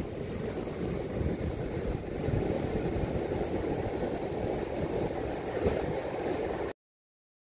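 Ocean surf breaking and washing up a sandy beach, with wind buffeting the microphone into a steady low rumble. It cuts off abruptly near the end.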